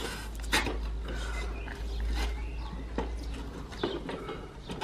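Manual tyre changer being worked on a steel-rimmed spare wheel: a few short, sharp metal clicks and knocks, spaced irregularly, as the steel lever arm is levered against the wheel.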